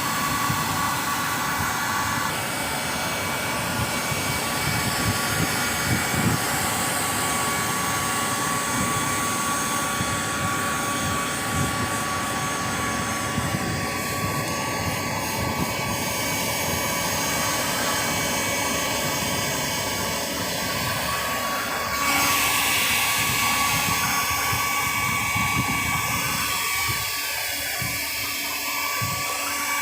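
Power tool or machinery running steadily with a high whine over a wash of mechanical noise. The sound changes abruptly about twenty-two seconds in, turning brighter and harsher.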